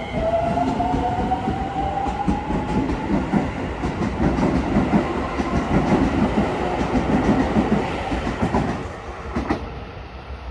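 Electric commuter train pulling away from the platform. Its traction motors give a rising whine at first, then the wheels clatter over the rail joints, and the sound fades as the train moves off near the end.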